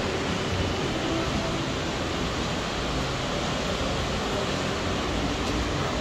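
Steady rushing noise of wind and rough surf, with uneven low rumbling from wind on the microphone.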